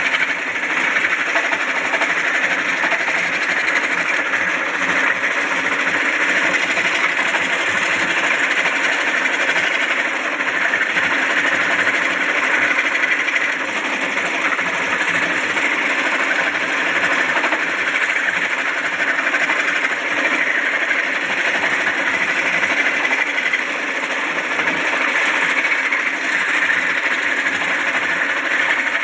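Computerized (CNC) embroidery machine running continuously, its needles stitching at a fast, steady clatter.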